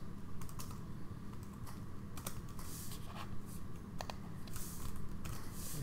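Typing on a computer keyboard: irregular keystrokes in short runs with brief pauses, over a low steady hum.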